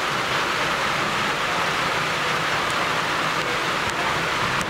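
Pouring rain falling steadily, an even hiss with no let-up.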